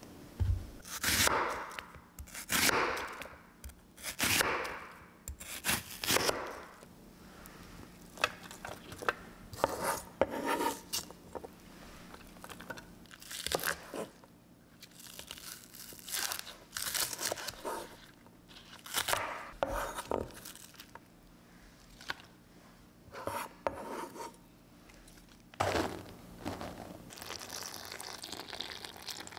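Kitchen handling noises: a dozen or more short tearing and scraping strokes, each under a second, with pauses between.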